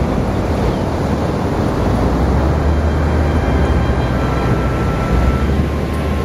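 Wind buffeting the microphone, a steady fluctuating low rumble, over the wash of ocean surf.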